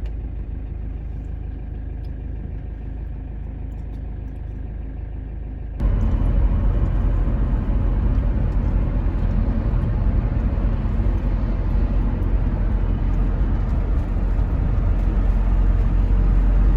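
Road and engine noise of a moving vehicle heard from inside the cabin: a steady low rumble that suddenly becomes louder about six seconds in and stays that way.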